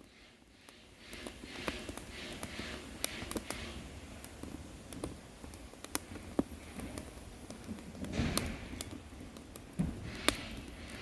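Firewood burning with irregular sharp crackles and pops, over a low rushing of flame.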